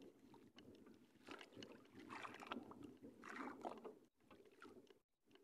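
Near silence with faint water lapping against the hull of a small boat, rising and falling in a few soft swells.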